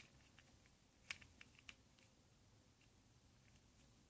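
Near silence: room tone with a few faint, short clicks about a second in.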